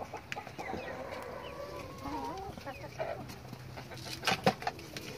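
Hens clucking, with a drawn-out wavering call in the first couple of seconds. Two sharp knocks a little past four seconds in.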